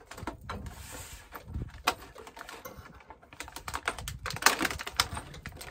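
Quick, irregular clicks and taps of food preparation on a countertop, as utensils and containers are handled and set down. The taps come thickest about four to five seconds in.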